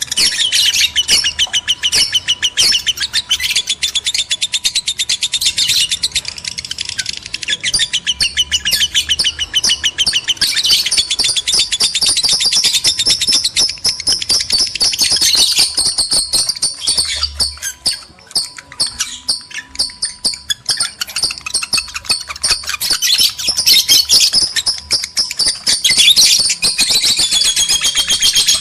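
Lovebirds chattering in a rapid, unbroken stream of shrill chirps, thinning briefly a little past halfway: the excited calls of lovebirds in breeding condition.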